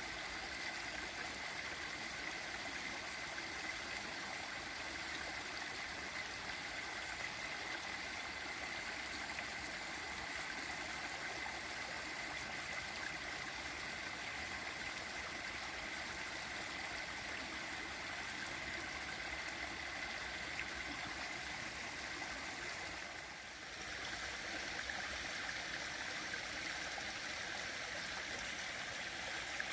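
Steady rushing of flowing water from a small river, unbroken except for a brief dip about 23 seconds in.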